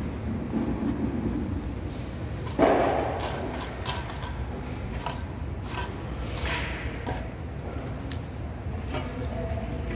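Trowel scraping and scoring grooves in a wet cement mortar bed, in short scattered strokes. A louder sudden knock comes about two and a half seconds in. A steady low background rumble runs underneath.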